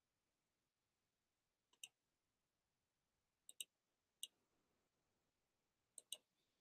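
Near silence broken by about six faint, sharp clicks at a computer, some in quick pairs, as the slideshow is closed.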